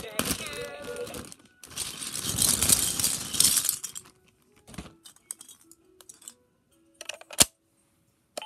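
Electronic toy sounds: a short electronic tune ends about a second in, followed by a two-second burst of hissing noise. Then come scattered clicks and brief low beeps, with one sharp click near the end.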